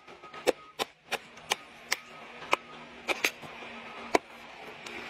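Sharp knocks and cracks from the felling of a large tree, about ten at uneven spacing, over a faint steady hum.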